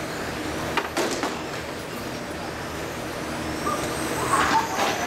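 Several 1/10-scale electric RC touring cars racing on an indoor carpet track: high motor whine rising and falling as they accelerate and brake, over steady tyre and hall noise. A few sharp knocks about a second in and again near the end.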